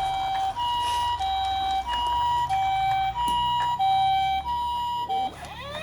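Toy ambulance's electronic hi-lo siren, two notes alternating about every two-thirds of a second. Near the end it stops and a second siren starts up with a rising wail.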